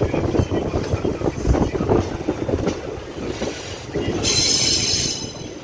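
Passenger express train rolling slowly into a station, its wheels rumbling and knocking over the rail joints. About four seconds in, a high brake squeal lasts about a second.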